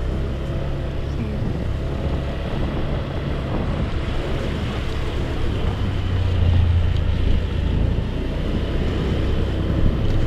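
Motorcycle engine running steadily under way, with wind noise on the microphone; it swells a little about two-thirds of the way through.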